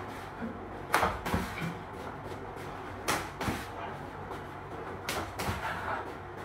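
Sharp slaps and thuds of arms and hands meeting as one man's punches are blocked in a Wing Chun drill, in three quick pairs about two seconds apart.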